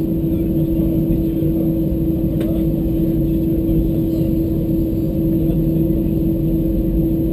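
Airbus A320-214's CFM56-5B engines during the takeoff roll, heard from inside the cabin: a steady hum over a dense low rumble.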